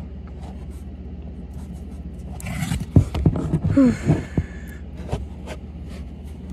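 Phone handled and repositioned inside a cardboard box: rustling and scraping against the cardboard, with a cluster of scrapes and knocks near the middle, over a steady low hum.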